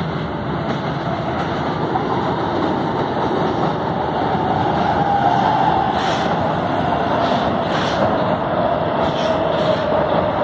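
São Paulo Metro fleet K train arriving along the platform, its running noise growing louder as it comes close. A whine from the train slowly drops in pitch as it brakes into the station, with a few clicks from the wheels near the end.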